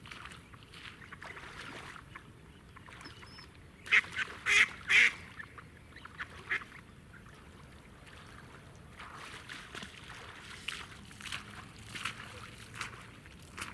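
Live decoy duck quacking: a loud run of three quacks about four seconds in, then more, quieter quacks in the second half.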